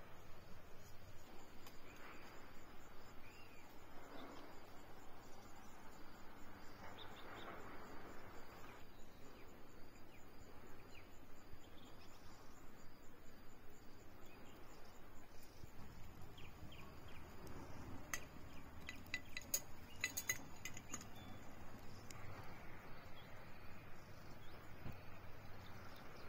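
Faint woodland ambience with a few soft bird chirps, and a quick run of sharp clicks about two-thirds of the way through.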